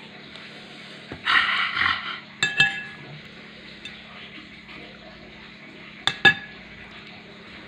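Metal spoon clinking against a china plate while eating: a short scraping rustle about a second in, then two quick ringing clinks, and two more near the end.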